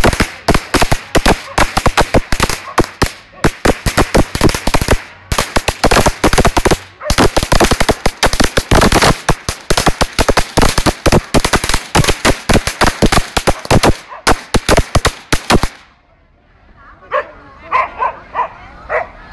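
A string of firecrackers going off in rapid, dense pops for about sixteen seconds, then stopping abruptly. A dog then gives a few short, high-pitched calls.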